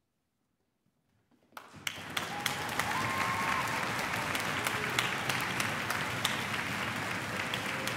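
Near silence as the last of the music dies away, then audience applause breaks out about a second and a half in, quickly swelling and carrying on steadily.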